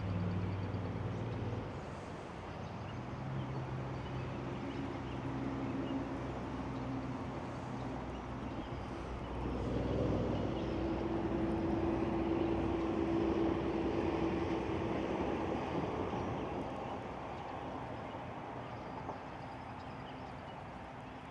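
A motor engine running steadily with a low hum. It grows louder about nine seconds in, holds a steady higher tone for about five seconds, then slowly fades.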